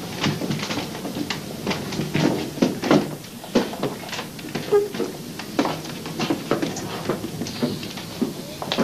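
Irregular knocking and clattering, about three or four knocks a second, of people getting up from a table and moving about on a hard floor: chairs and furniture being shifted, and footsteps.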